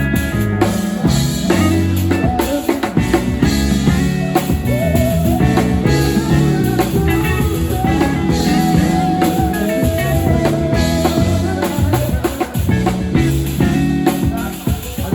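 Music with a drum-kit beat, a bass line and a wavering melody line.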